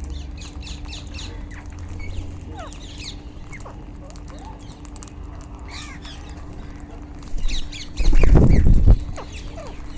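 A flock of rose-ringed (Indian ringneck) parakeets calling, with many short, quick, high squawks and chirps overlapping. About eight seconds in comes a much louder, low burst of noise lasting about a second.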